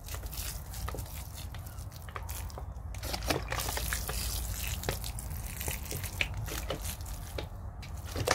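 Water poured onto potting soil, landing as many small, irregular drips and splashes.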